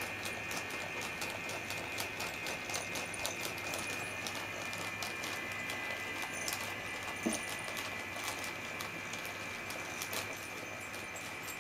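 Battery-powered self-moving cat toy running inside a crinkly plastic pouch: a thin steady motor whine under irregular rustling and clicking as the pouch shifts on the rug and the cat paws at it, with one sharper bump a little past halfway.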